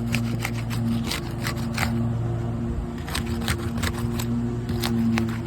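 Roof snake worked under asphalt 3-tab shingles to break their adhesive seal strips: a run of short, irregular scraping clicks and crackles. A steady low hum runs underneath.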